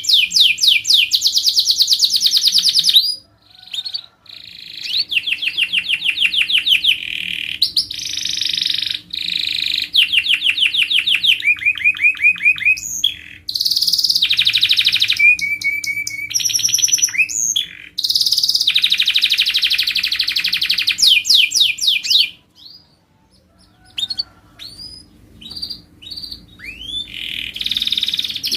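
Canary singing: long phrases of fast trills and rapidly repeated rolling notes, broken by a short pause about three seconds in and a quieter stretch of scattered single chirps near the end before the song resumes.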